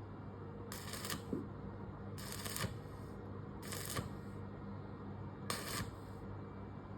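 Electric arc welding in short stitches: four half-second bursts of arc crackle, about one every one and a half seconds, over a steady low hum.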